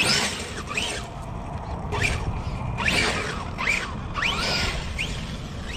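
Electric RC car's motor whining in repeated short throttle bursts, about seven of them, each rising then falling in pitch, over a low rumble.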